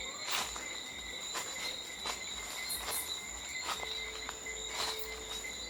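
Night insects trilling steadily on a high, unbroken tone, with irregular rustling footsteps through brush.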